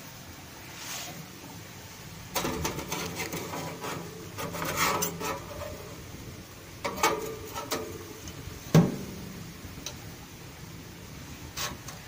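Metal handling noises at a small electric toaster oven: scraping and rattling on the oven's wire rack from about two seconds in, a few clicks, then the glass door shutting with one sharp clack about nine seconds in, as a hardened steel knife blade is loaded for tempering.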